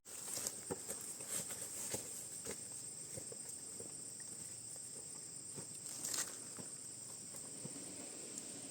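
Steady high-pitched chirring of insects in the forest, with scattered light crunches and rustles of footsteps in the undergrowth, busiest in the first few seconds, and one sharper snap about six seconds in.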